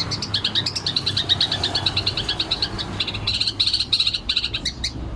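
Long-tailed shrike (cendet) giving its rapid-fire chattering 'ngekek' song: a fast unbroken series of short, sharp high notes, about ten a second, growing louder in clusters toward the end.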